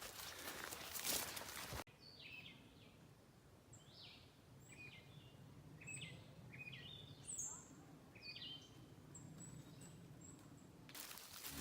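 Songbirds chirping: many short, quick calls scattered over a quiet background, after a steady hiss cuts off about two seconds in. Music begins to come in near the end.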